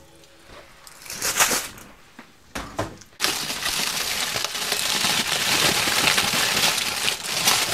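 Oven chips tipped off a foil-lined baking tray onto a plate: a few short knocks and scrapes as the tray comes out, then from about three seconds in a steady crinkling of the aluminium foil and rustle of the chips sliding onto the plate.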